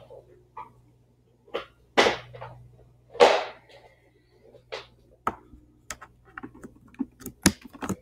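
A person breathing forcefully through the nose, two loud noisy breaths about a second apart, during alternate-nostril pranayama breathing. Scattered small clicks and taps follow near the end.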